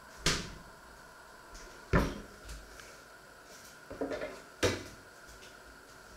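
Kitchen cupboard doors and drawers opening and shutting: four sharp knocks, the loudest about two seconds in, with a few lighter clatters just before the last one.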